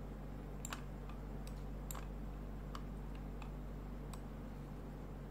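Computer mouse clicking, single clicks at irregular intervals about every half second to a second, over a steady low electrical hum.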